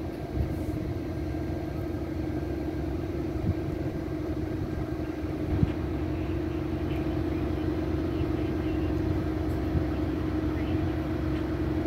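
A standing Amtrak passenger train idling, its diesel locomotives and cars running steadily: a low rumble with a constant hum. A brief knock sounds a little past halfway.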